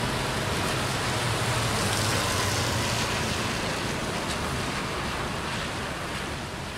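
Wet-road traffic: tyres hissing on rain-soaked pavement with a low rumble, swelling about two seconds in and then slowly fading as a vehicle passes, over steady rain noise.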